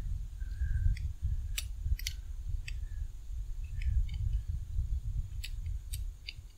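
A scattered series of small, sharp metallic clicks and taps as a wire lamp harp is squeezed and fitted back into its saddle on a brass lamp socket, over a steady low rumble.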